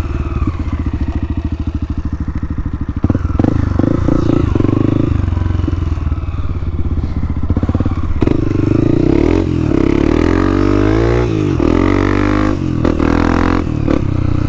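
Dirt bike engine running on a trail ride, steady at first, then revving up and down several times through the second half as the rider works the throttle.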